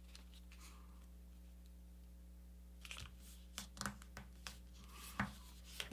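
Paper being folded and creased by hand: faint short rustles and taps, starting about halfway through, over a low steady hum.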